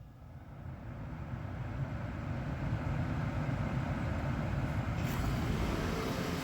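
Toyota Prius 30's 1.8-litre four-cylinder petrol engine starting up and running, building over the first couple of seconds and then steady. A steady hiss joins about five seconds in.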